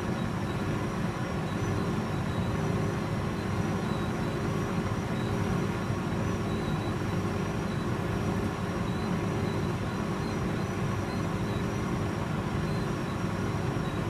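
Hotpoint 9310A tumble dryer running, its drum turning: a steady hum with a faint high whine above it.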